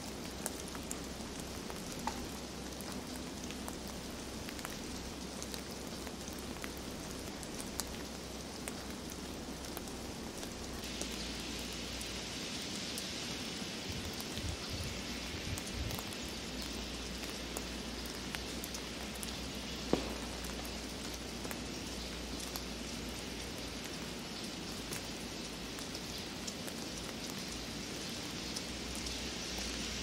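Heavy snowfall: a steady pattering hiss of falling snow with scattered faint ticks. About eleven seconds in the hiss turns brighter and a little louder, and there is one sharper tick about twenty seconds in.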